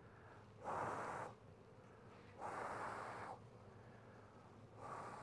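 Three rushing puffs of air, each roughly half a second to a second long, blown over honey bees crowding the top bars of an open hive super to drive them down between the frames.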